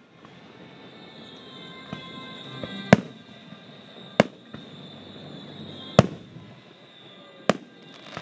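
Aerial firework shells bursting: a faint bang a little under two seconds in, then four sharp, loud bangs spaced a second or more apart, each trailing off in a short echo.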